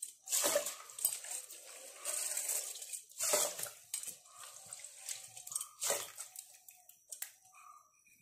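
Water splashing and sloshing in a cooking pot in several short bursts, fading to faint scattered small sounds near the end.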